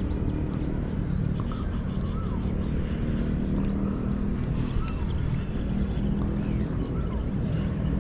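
A steady low motor drone, with a bird giving short rising-and-falling chirps every second or two.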